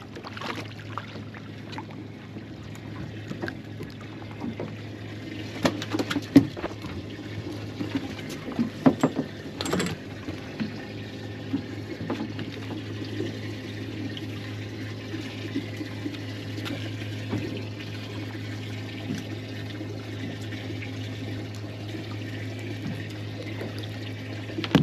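Water trickling and splashing over a steady low hum, with a few sharp knocks in the middle.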